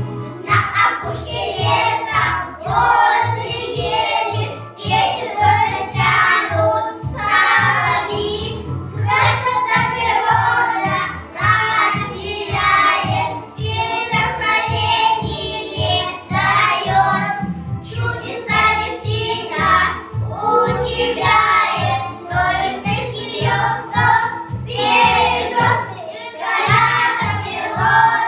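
Group of young children singing a song together over a backing track with a steady beat.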